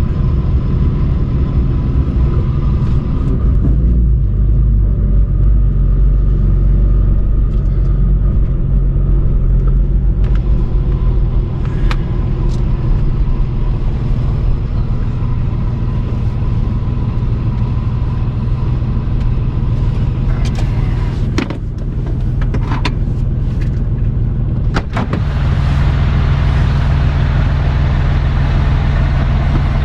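Pickup truck driving while towing a boat, a steady low engine and road rumble whose note shifts about three-quarters of the way through, with a few short clicks or knocks along the way.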